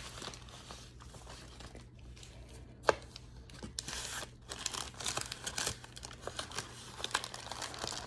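Plastic bag crinkling and rustling as a powdery pressed cornstarch brick is unwrapped by hand, with one sharp snap about three seconds in and steady crinkling after it.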